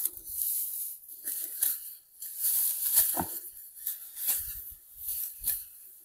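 Dry ripe paddy (rice) stalks being cut and gathered by hand with sickles: a series of irregular crisp swishes and crunches, some with a dull thud.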